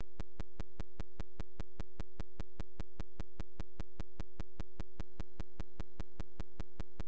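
A steady electronic tone with evenly spaced clicks about five times a second, unchanging throughout: a signal artifact in the recording rather than a sound from the scene.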